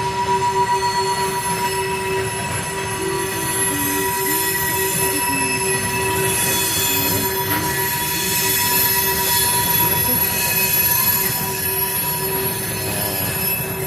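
Freight train rolling past, its steel wheels squealing against the rail in a steady shrill tone over the rumble of the cars.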